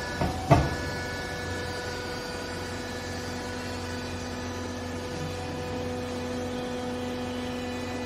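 Vertical hydraulic clothing baler's electric motor and hydraulic pump running with a steady hum of several fixed tones, as the machine raises its chamber off a compressed bale of used clothing. A sharp clunk comes about half a second in, just after a lighter knock.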